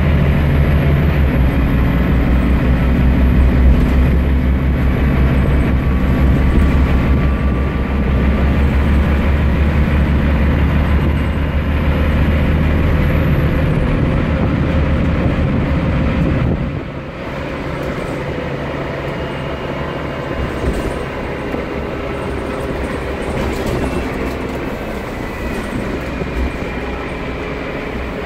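Scania CN230UB single-deck bus heard from inside the saloon, its diesel engine droning loudly with road noise. About two-thirds of the way through the engine note falls away suddenly, leaving quieter road and cabin noise with light rattles.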